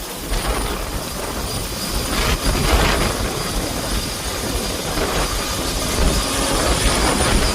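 Helicopter running close by during a rooftop-unit lift: a loud, steady rotor and engine noise with a faint, high, steady whine.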